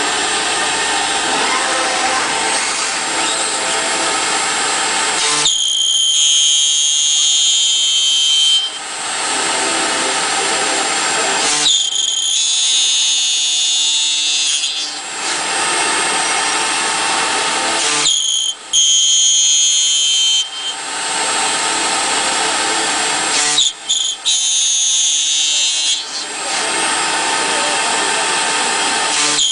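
CNC copy router with an HSD 4.5 kW spindle milling aluminium profile. It switches about every six seconds between a rough cutting noise and a high steady whine, in repeated machining cycles.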